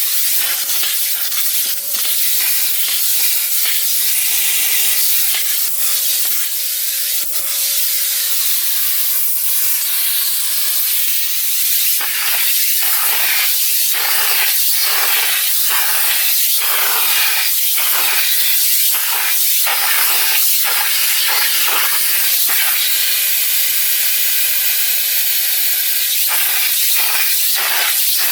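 Electrolux Ergospace canister vacuum cleaner running steadily, a loud airy hiss with a steady whine. From about halfway through, the nozzle is worked over the car interior in short strokes about once a second.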